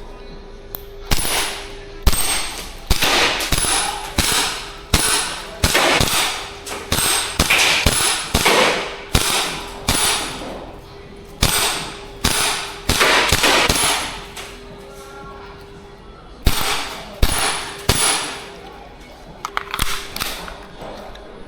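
Airsoft gun firing single shots in a quick string, about twenty in all, with a short pause about two-thirds of the way through. Many shots are followed by a brief high ping.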